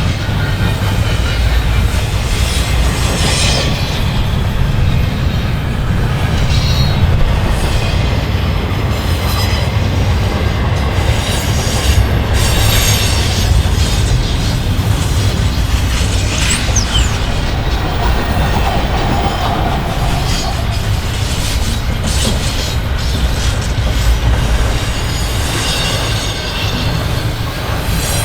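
CN freight train's cars rolling past: a steady low rumble of wheels on rail, with clicking over the rail joints and a few brief high wheel squeals.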